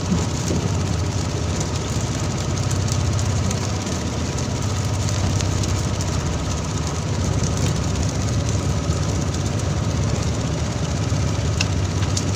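Fishing boat's inboard engine running steadily with a low drone, under a continuous hiss of water spray and sea. A couple of sharp clicks near the end.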